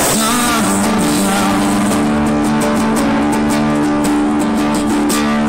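Live band music: a singer holds a sung word near the start over guitar and steadily held chords, then the band plays on with a steady rhythmic beat.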